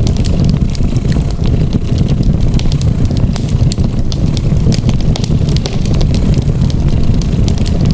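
Wood fire crackling in a fireplace, with many small sharp pops, over the steady low rumble of a cat purring.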